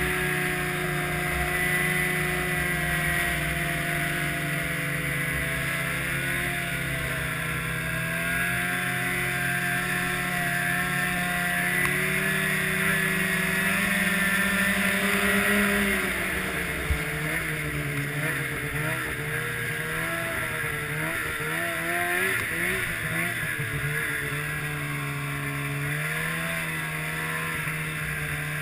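Snowmobile engine running under way, its pitch climbing slowly for the first half, then dropping and wavering with throttle changes before settling steady near the end, over a constant hiss.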